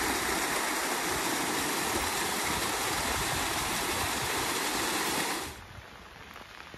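Steady rushing of water that cuts off abruptly about five and a half seconds in, leaving a much fainter hiss of light rain.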